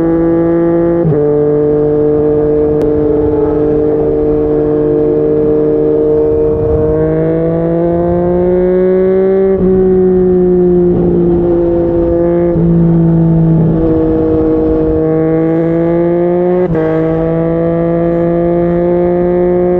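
Yamaha MT-09's three-cylinder engine through a Yoshimura R55 slip-on exhaust, pulling at highway speed. Its note steps down suddenly about a second in, climbs slowly, steps down again about halfway through, and jumps back up near the end.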